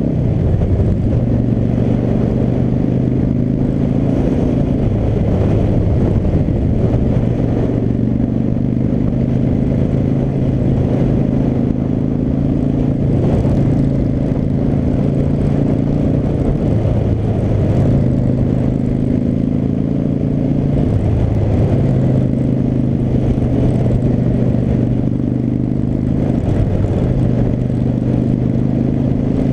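V-twin cruiser motorcycle engine running under way, with wind rumble on a helmet-mounted microphone. The engine note holds steady, then steps up or down in pitch every few seconds as the rider shifts gears and changes throttle.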